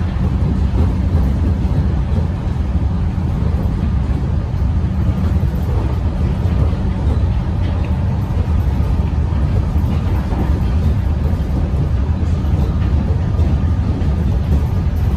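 Melbourne suburban electric train in motion: a steady low rumble of wheels and running gear that holds an even level throughout, with no horn or announcement.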